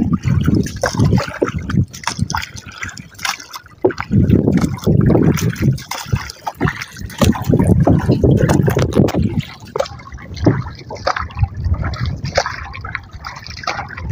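A wooden paddle stroking through seawater beside a small wooden outrigger canoe, with water splashing and trickling off the blade. Heavy low rumbles come in surges about every two seconds and ease after about ten seconds.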